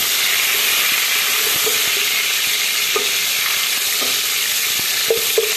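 Sliced onions, garlic and tomato pieces sizzling steadily in hot oil in a pan, with a wooden spoon stirring them and a few short knocks of the spoon against the pan in the second half.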